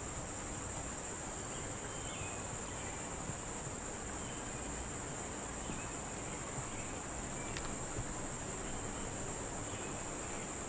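Summer insects trilling in a steady, unbroken high-pitched chorus, with a few faint short chirps lower down.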